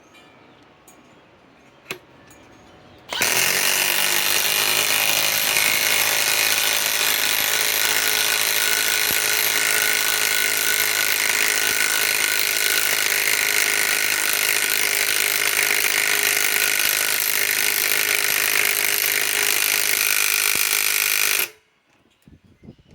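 Milwaukee M18 Fuel Gen 2 mid-torque cordless impact wrench hammering steadily under load as it drives an 8-inch lag screw. It starts about three seconds in, runs without a break for about eighteen seconds, and stops suddenly.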